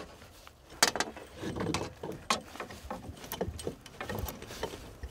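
Sharp metal clicks and rattles from a steel spring-clip muskrat trap being worked by hand, with the loudest click about a second in.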